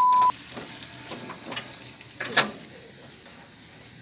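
A steady electronic beep tone cuts off just after the start. Faint scattered sounds follow, then a single sharp, short sound about two and a half seconds in, the loudest moment, before a low steady background.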